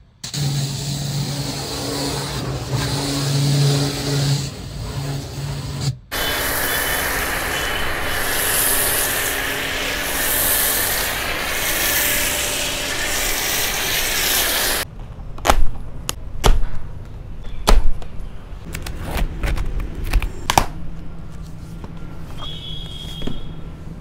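Electric high-pressure washer (Starq W8, 2800 W) running, its motor and pump humming steadily as the jet sprays water onto a car. About six seconds in, a louder, even hiss of spray takes over for most of the next nine seconds. After that it gives way to quieter scattered knocks and clicks.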